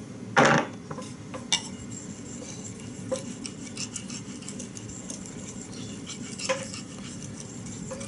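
Steel knife blade being stroked across a wet Naniwa Chosera water stone: a soft steady scraping of hand sharpening, with a few light metallic clicks and one louder knock about half a second in.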